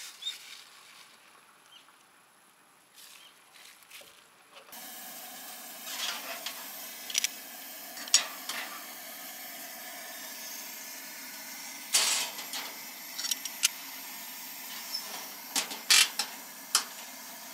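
Gas camp stove burner hissing steadily under a box camp oven, with sharp metal clanks and knocks as a skillet is set inside and the oven door is handled and shut. The hiss starts a few seconds in, after a quiet stretch.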